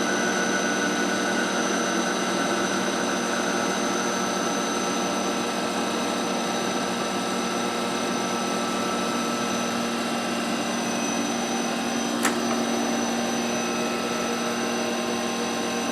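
Cincinnati plain hydraulic cylindrical grinder running with its grinding spindle on: a steady machine hum with a thin high whine. A single short click about twelve seconds in.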